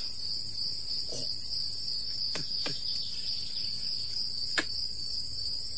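Crickets chirring in a steady, fast-pulsing high trill, a nighttime background in the play. A few short sharp clicks cut across it, the loudest about two thirds of the way through.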